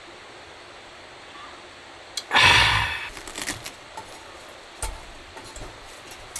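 Steady rush of a mountain stream. A little over two seconds in comes a sudden loud scraping rush lasting about half a second, then scattered clicks and a couple of low thumps from handled objects.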